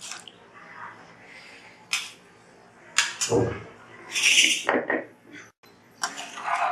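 Metal vessel clinking against a cooking pan several times, with a short splash of hot water being poured into the curry about four seconds in.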